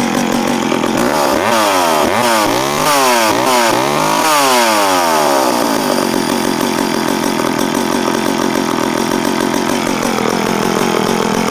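Danarm Frontier 5R vintage two-stroke chainsaw, with electronic ignition, running. About a second in it is revved up and down several times in quick succession, then it settles back to a steady run.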